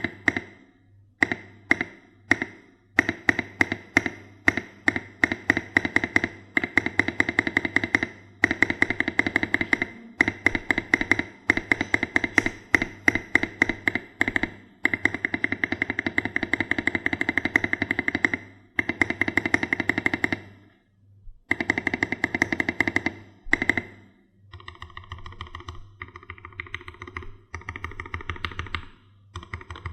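Fast typing on a Keydous NJ68 mechanical keyboard with a brass plate and modded Gateron Black Ink switches, keystrokes rattling off several a second in long runs with short pauses. About 24 s in the typing turns lighter and sparser.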